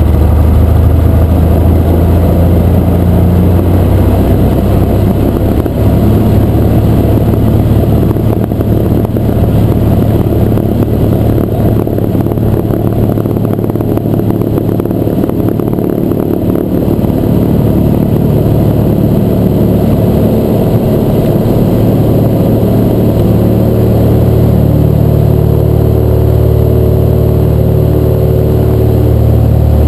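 Cessna 172's six-cylinder Continental O-300 engine and propeller running steadily as the plane rolls over a grass strip, heard from inside the cabin. The engine note rises in the last few seconds.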